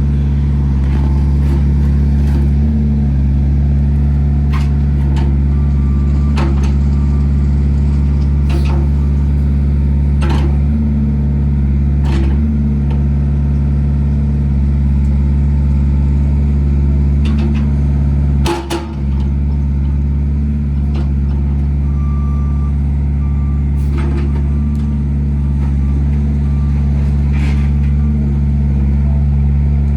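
Wacker Neuson 8003 mini excavator's diesel engine running steadily, with scattered sharp clanks every few seconds and a louder knock about two-thirds of the way through.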